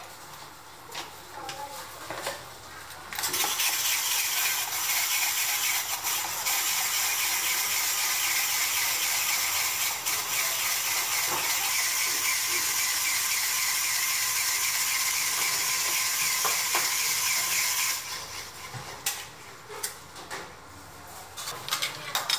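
Electric block-ice shaver running, its spinning blade plate shaving a pressed block of ice into flakes: a steady, high-pitched grinding that starts about three seconds in and stops about fifteen seconds later. Light clinks and knocks come before and after it.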